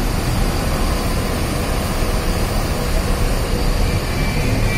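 Diesel engine of a Mercedes-Benz OH 1626 coach idling: a steady low rumble with an even hiss over it.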